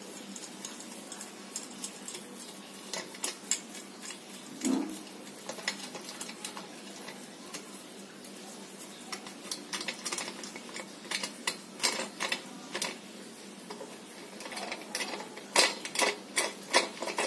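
Clear plastic stretch wrap being peeled and unwound by hand from a metal exhaust pipe: irregular crinkling and crackling. The crackles come thicker and louder in the second half, densest near the end.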